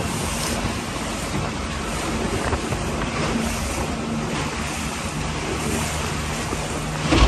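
A small aluminium boat under way, with its outboard motor humming steadily under the rush of water along the hull and wind on the microphone. A single loud thump near the end is the hull slapping a wave.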